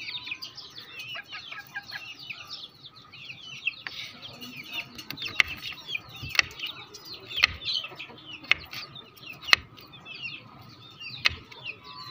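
A kitchen knife chopping onion on a wooden board, with sharp knocks about once a second, over the constant high peeping and chirping of young chickens.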